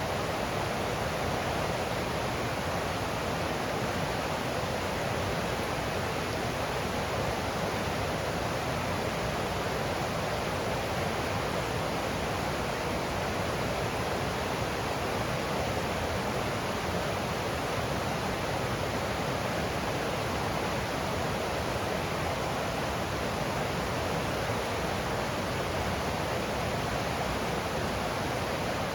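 A forest stream's water flowing and rushing steadily over rocks, an even, unbroken rush with most of its body in the middle range.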